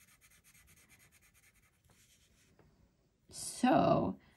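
Mondo Llama metallic colored pencil scribbling on paper in quick, faint back-and-forth strokes as a swatch is shaded in. The strokes stop after about two and a half seconds, and a spoken "So" follows near the end.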